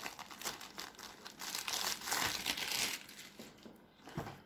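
Clear plastic film crinkling and rustling as it is peeled off a cardboard product box by hand, dense for about three seconds and then dying down.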